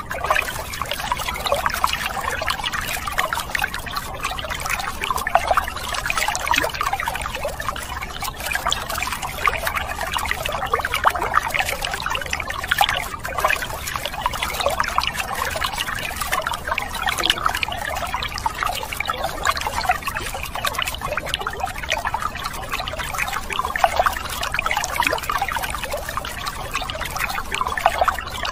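A thin stream of water pouring steadily onto plastic toy cars and trucks, splashing off them and into a toy truck's bed.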